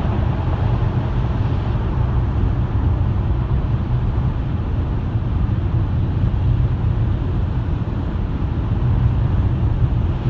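Steady low rumble of a moving car's road and engine noise, even throughout with no distinct events.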